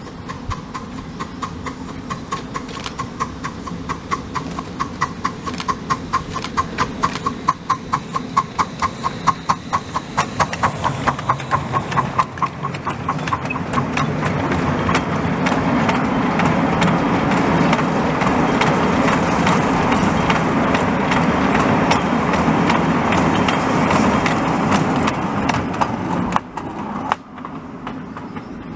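Miniature steam locomotive working toward the listener, its exhaust beating in an even rhythm that grows louder. Then a long train of open wagons rolls past with a steady noise of wheels on rail, dropping away near the end.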